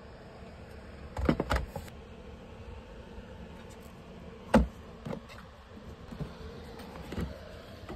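Hard plastic carrying case of a SPRK portable camp stove being handled: a quick run of clicks and knocks about a second in, then one sharp knock near the middle as the stove goes in and the lid comes down, followed by a few lighter knocks.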